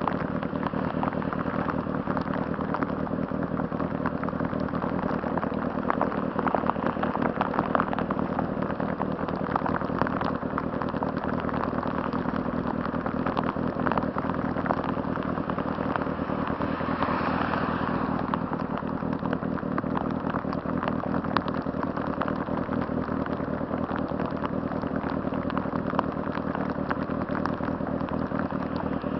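2006 Honda CBR600RR's inline-four engine running at a steady, unchanging speed, with no revving. A brief swell of higher-pitched noise comes about halfway through.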